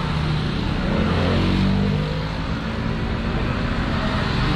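Road traffic: a motor vehicle's engine running close by over a steady traffic hum, its pitch rising a little about a second in.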